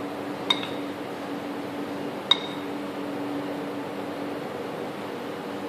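A metal spoon clinks twice against a ceramic bowl, a short ringing tap each time, about two seconds apart, over a steady low hum.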